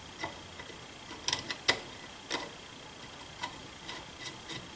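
Light, irregular metallic clicks and clinks as the barrel nut of a Savage Model 64 rifle is fitted and threaded on. The sharpest clicks come a little over a second in.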